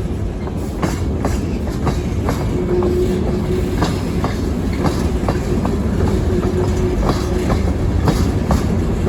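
Freight cars rolling past on jointed track: a steady low rumble of the train, with the wheels clicking over the rail joints about two to three times a second.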